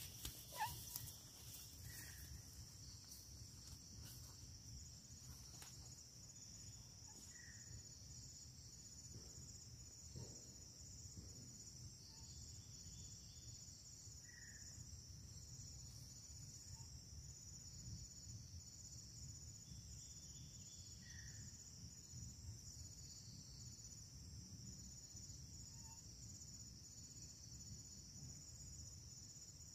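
Faint, steady high-pitched drone of an insect chorus, with a soft short chirp recurring every six or seven seconds.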